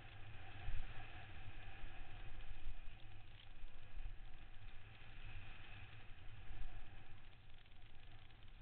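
Wind buffeting the microphone of an onboard camera and the running noise of a downhill mountain bike descending a dirt trail: a constant, gusting low rumble with a hiss over it.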